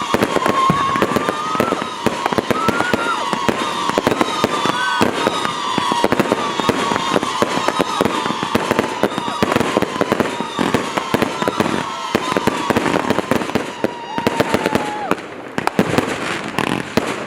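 Two consumer firework cakes, World Class Fireworks' Wings of the Brave and Shield of Liberty, firing together: a dense, continuous run of shots and crackling bursts. A wavering high whistle rides over the shots and drops away about fifteen seconds in.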